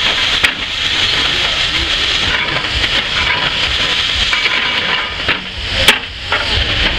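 Antique steam shovel working: a steady hiss of steam over a low rumble, with a sharp clank about half a second in and a louder one just before the end.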